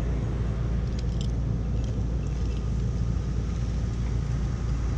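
Bus engine running with a steady low rumble.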